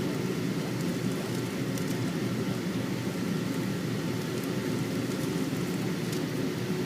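Steady cabin noise inside a Boeing 777-200ER: a low, even rumble from the engines and air system, with a faint steady whine.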